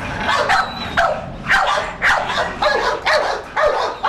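Pit bulls barking in quick, repeated barks, about three a second.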